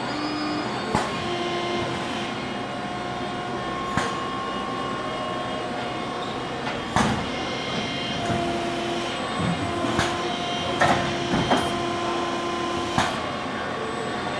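Yaskawa industrial robot arm working beside a tube bender: its servo motors whine in short stretches as it moves between poses, over a steady machine hum. Sharp clicks and clunks come every few seconds, the loudest about seven and eleven seconds in.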